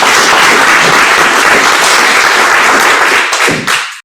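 Audience applauding, thinning out near the end before the sound cuts off abruptly.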